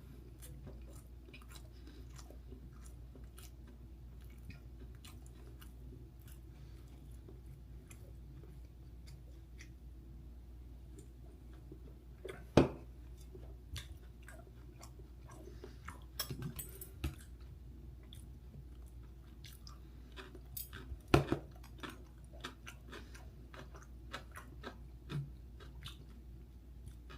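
A person chewing dumplings close to the microphone, with small wet mouth clicks throughout. Two sharp knocks stand out, about twelve seconds in and again about twenty-one seconds in.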